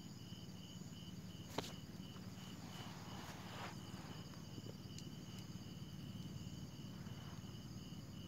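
Night insects such as crickets chirping: a pulsed chirp about three times a second with a steady higher trill over it. A single sharp click about one and a half seconds in.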